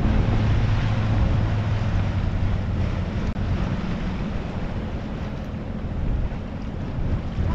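Sailboat's inboard engine running steadily under way, a low even hum, with wind buffeting the microphone and water rushing past the hull.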